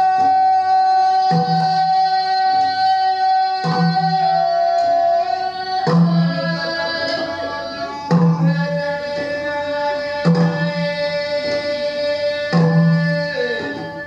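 Temiar healing song (noñ) played from a recording: a voice holds long sung notes that step down in pitch every few seconds, over a low percussive stroke about every two seconds.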